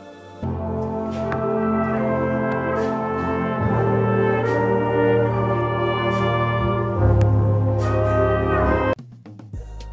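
Jazz band playing, led by trumpets and trombones. The music comes in about half a second in, grows louder about seven seconds in, and cuts off suddenly near the end.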